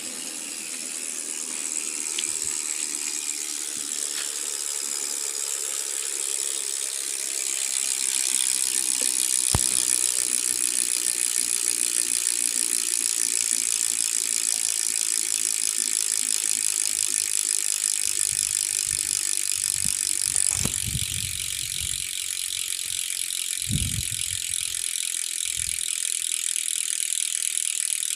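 Ragusa R100 two-pawl bicycle freehub clicking as the rear wheel freewheels, the pawls making a steady, rapid ratcheting buzz that gets a little louder about eight seconds in. A few low thumps come near the end.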